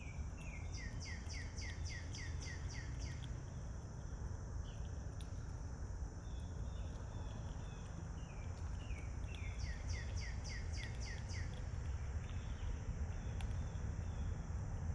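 A songbird singing two phrases, each a quick run of about eight repeated down-slurred notes, over a steady high insect drone and low background rumble.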